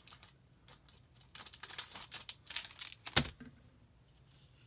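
Crinkling and rustling of a plastic card sleeve and trading cards being handled, in a small cluster of quick rustles with one sharp tap a little past three seconds in.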